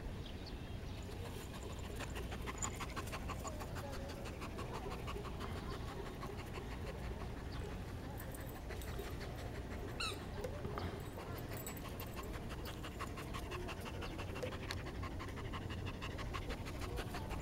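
Border collie panting with quick, even breaths close to the microphone. A brief high rising squeak comes about ten seconds in.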